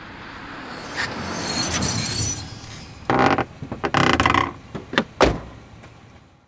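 Sound effects for an animated logo: a swelling whoosh, then a couple of short swishes and clicks, and one sharp hit about five seconds in that fades away.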